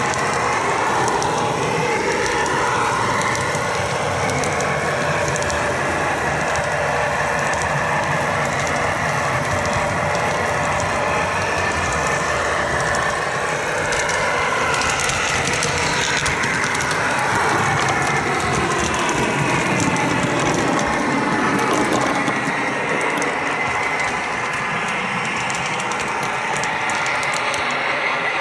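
Model train rolling along the track: the steady mechanical whir and clatter of a model diesel switcher's gear-driven motor and wheels, with a whine that drifts up and down in pitch and scattered clicks.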